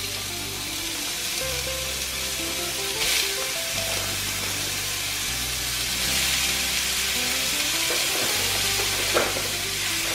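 Minced beef sizzling as it fries in a hot oiled non-stick frying pan, the sizzle getting louder about six seconds in as the mince is spread out across the pan. Background music with a slow changing bass line plays underneath.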